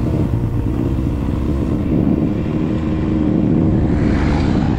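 Off-road vehicle engine running steadily, with a dense low rumble, as the vehicle drives along a gravel road. A rush of higher hiss rises near the end.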